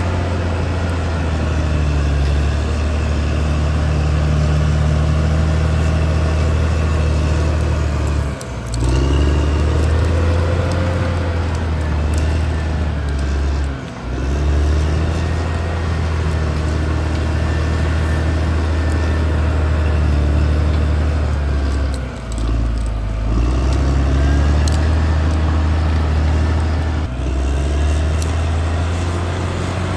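Diesel engine of a Caterpillar D6R XL crawler bulldozer running hard and steady, its note dipping briefly four times as the load changes.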